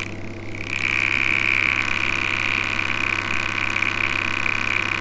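Small tweeter, fed from the amplifier's speaker output through a capacitor that filters out the low frequencies, giving a steady high-pitched distortion buzz: the sign that the amplifier, driven with a sine test tone, is clipping, its output squaring off at the internal rail voltage. The buzz dips briefly at the start, then holds steady.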